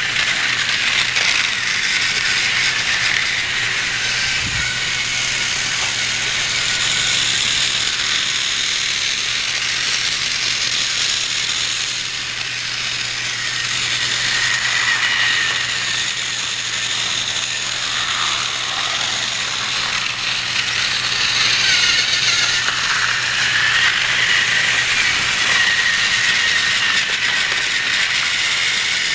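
Battery-powered Thomas TrackMaster toy trains running along plastic track, their small geared motors giving a steady high-pitched whir and rattle.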